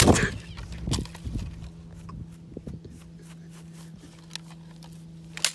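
A small drone smashed onto grass: a loud hit as it lands and breaks, another knock about a second later, then scattered small clicks as the broken parts are handled. A low steady hum runs underneath.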